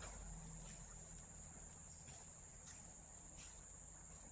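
Near silence, with a steady high-pitched insect trill, crickets, running in the background and a few faint clicks.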